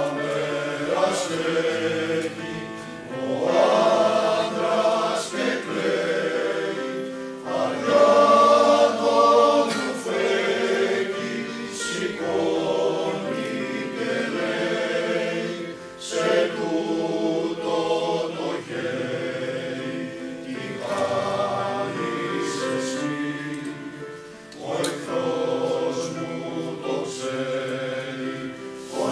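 Mixed four-part choir of men and women singing with piano accompaniment, in long phrases separated by short pauses.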